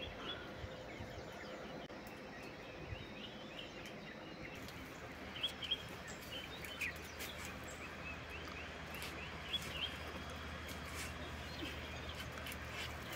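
Small birds chirping now and then over a steady outdoor background hiss, with a faint low hum coming in about four seconds in.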